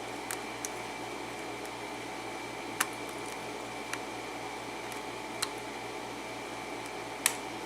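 Faint, scattered metallic clicks of a lock pick working the pin tumblers of a Schlage-keyway lock under tension, about six in all, the sharpest near the end, over a steady background hum.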